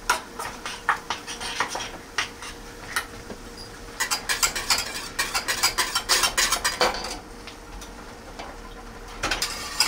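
A utensil stirring gravy in a pot, clinking and scraping against the pot's sides, while a butter-and-flour roux is worked in to thicken it. The strokes are scattered at first, come in a quick dense run from about four seconds in, and pick up again near the end.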